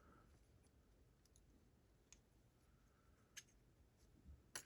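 Near silence broken by a few faint clicks from small lock parts being handled, with a quick cluster of sharper clicks near the end.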